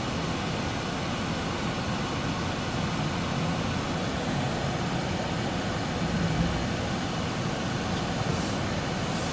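Steady road and engine noise inside the cabin of a moving Dodge V6 car on a test drive: a constant low rumble of tyres and engine at road speed.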